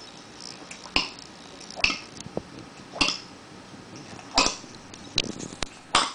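Domestic cat retching to bring up a hairball: a series of short, sharp heaves about once a second, six in all.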